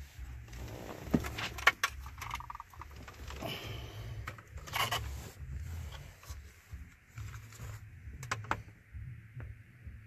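Scattered plastic clicks and knocks from a truck dash switch panel being handled and offered up to its opening in the dash, over a low rumble of handling noise. The sharpest clicks come in a cluster about a second in and again near the end.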